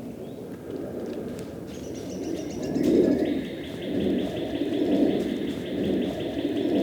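Wild birds calling in the woods: low coos repeated about once a second, joined about three seconds in by a high, fast trill.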